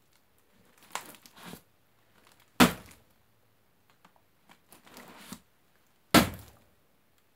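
Emerson Super CQC-7 folding knife stabbed hard into a cardboard box twice, each a sharp thud, about three and a half seconds apart. Between the stabs there is softer crackling and scraping of cardboard as the blade is pulled back out.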